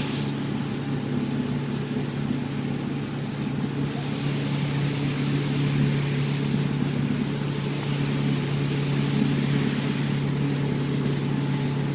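Motorboat engine running steadily at an even pitch, with a steady hiss over it.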